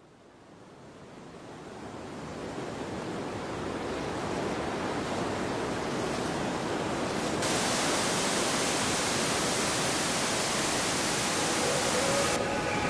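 A steady rushing noise, like an outdoor wind-or-water ambience, fading in over the first couple of seconds. A brighter hiss is added about halfway through and cuts off abruptly near the end, as a few steady musical tones come in.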